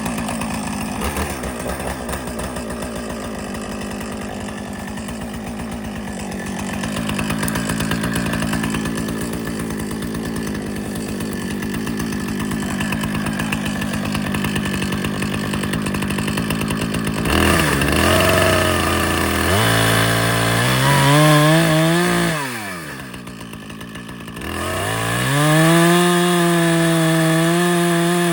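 Chainsaw cutting a small felling notch (wedge) into a thin dead tree, the engine held steady under load for most of the time. Near the end it revs up freely, drops back toward idle, then revs high again.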